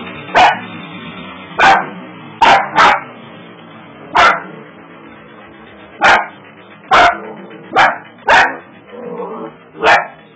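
Dachshund barking in about ten short, sharp single barks at uneven gaps.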